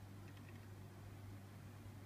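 Near silence: room tone with a steady low electrical hum and faint hiss.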